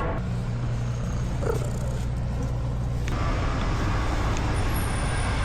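A vehicle engine running with a steady low hum. More road-like noise joins about three seconds in.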